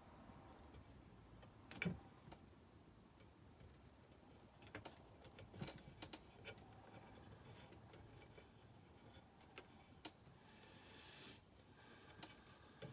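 Near silence with faint, scattered clicks and light taps from hands pressing and smoothing decoupage paper on a painted metal tray, the loudest about two seconds in. A soft brushing rustle follows shortly before the end.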